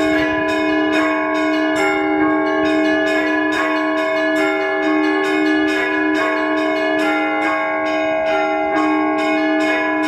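Orthodox church bells rung by hand from the bell tower: a rapid, rhythmic peal of several bells of different pitch, several strikes a second, each ringing on under the next.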